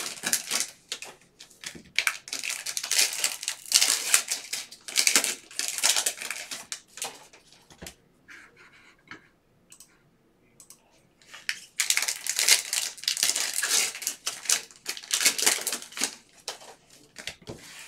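Plastic cello wrappers of Panini Prizm football card packs crinkling and tearing as they are ripped open by hand, in two long spells with a quieter lull of a few seconds in the middle.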